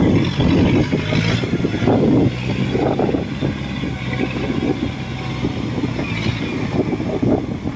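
Farm machinery engine running steadily, a constant low drone with irregular rumbling bursts over it.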